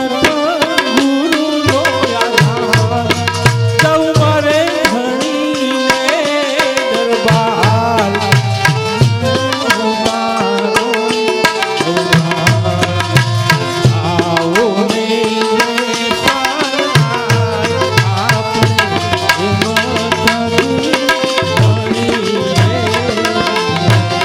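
Live folk stage music: a singer's voice over a steady hand-drum rhythm and sustained melody-instrument tones.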